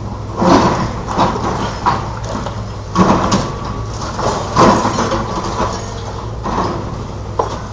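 Building demolition: a steady low diesel machine hum under a run of irregular crashes and scrapes of breaking and falling rubble, every second or two.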